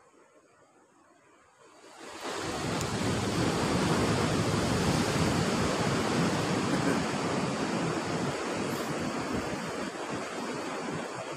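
Loud, steady rush of sea wind and surf that comes in suddenly about two seconds in.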